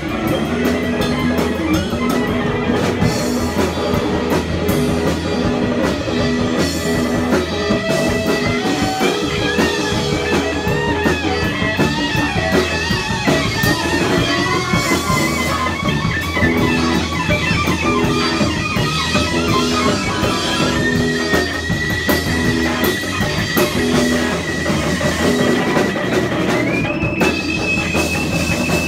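Live punk rock band playing an instrumental passage on drums, guitar and bass, with a fiddle melody on top. The melody ends in a long held high note near the end.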